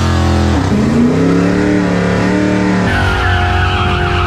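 A big-tire Chevy Nova drag car's engine running, its pitch climbing as it revs about a second in and then holding. About three seconds in, it cuts abruptly to a Fox-body Mustang drag car's engine, with a higher wavering note over it.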